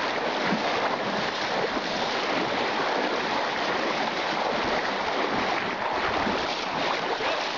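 Creek water rushing in a steady, even hiss.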